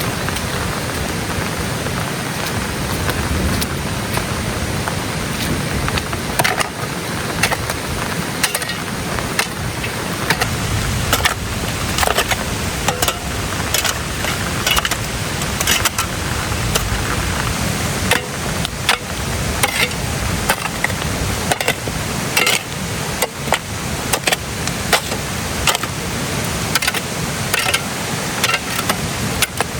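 Steady hiss of rain, with many sharp, irregular taps and knocks joining it from about six seconds in.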